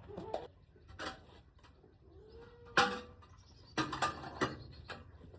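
A few sharp, irregular knocks and clatters, loudest about three seconds in and again in a quick cluster near four seconds, with a soft, short held call just before the loudest knock.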